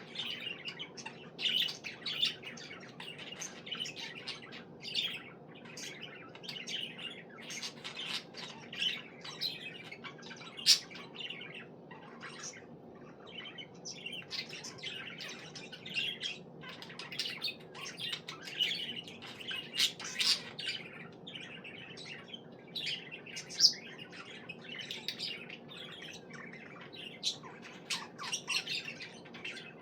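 Budgerigar chirping and warbling in a fast, continuous chatter of short notes, with a few sharper, louder squawks.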